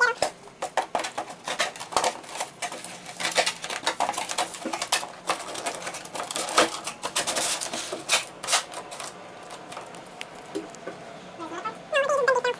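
Corrugated cardboard panels of a flat-pack cardboard chair being folded and slotted together: rapid scraping, rustling and tapping of cardboard, busiest for most of the stretch and thinning out near the end.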